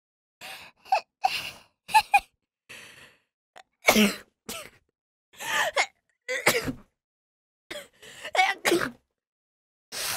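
A woman sneezing several times, with short gasping breaths building up to the sneezes. The loudest sneeze comes about four seconds in.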